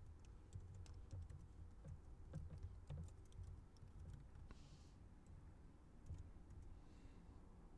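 Faint typing on a computer keyboard: scattered, irregular key clicks as text is entered.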